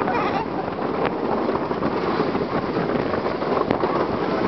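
Roller coaster train running along its track, with wind rushing over the microphone in a steady, loud noise.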